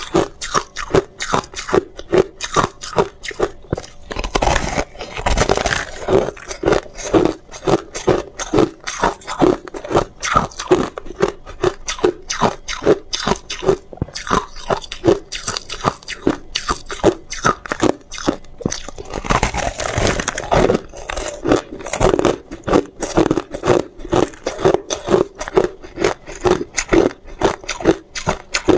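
A person biting and chewing hard ice: a rapid run of sharp crunches, several a second, with two longer, denser stretches of crunching about four seconds in and again around nineteen seconds.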